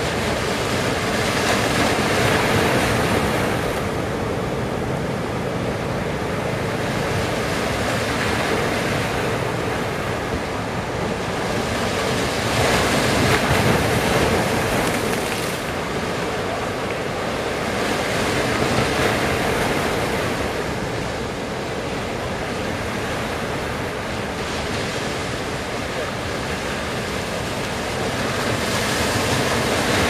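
Large ocean waves breaking in heavy surf: a continuous rush of water that swells louder every several seconds as each wave breaks.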